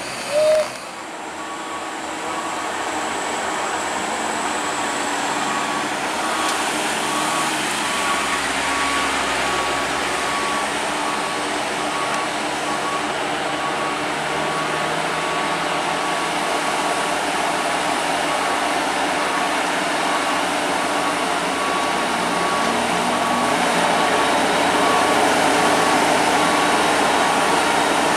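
Heavy truck engine running as a UD Quester tractor hauling a crane on a lowboy trailer approaches, growing louder near the end. A steady, evenly repeating electronic beep sounds over the engine.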